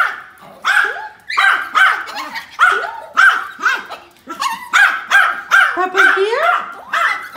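Chorkie (Chihuahua–Yorkshire terrier mix) barking excitedly in quick high-pitched yaps, about three a second, with a short break around four seconds in.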